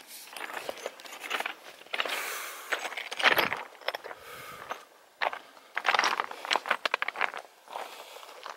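Footsteps on a rocky trail, irregular scuffs and clicks, mixed with close rustling of clothing and pack straps.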